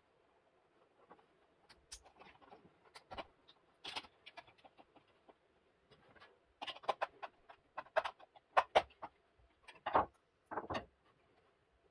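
Irregular clicks and rustles of hands handling stranded electrical wires and small plastic wiring parts: wire ends and insulation brushing and snapping, and plastic connector parts knocking on a wooden board. The clicks are sparse at first and come thicker and louder in the second half.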